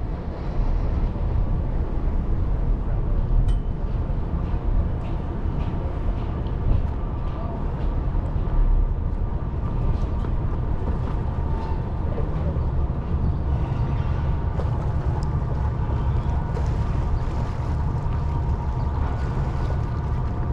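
A passenger ferry's engines running steadily under way: a continuous low rumble with a steady whine above it.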